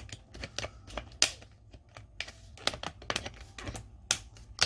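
Irregular clicks and taps of hard plastic as an HP 15-DW laptop's screen bezel is pressed and worked back into its clips, with a few sharper snaps, the loudest about a second in and near the end.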